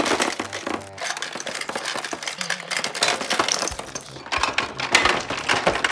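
Rapid clatter of many small hard-shelled candies spilling and rattling against a plastic toy garage and the tabletop, with a brief lull about four seconds in.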